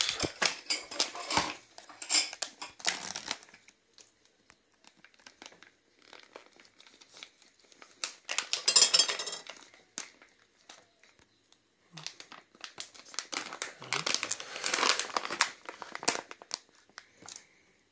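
Thin plastic food pouch crinkling and rustling as hands handle it and pull its top open, in several irregular bursts with quiet gaps between; the loudest burst comes about halfway through.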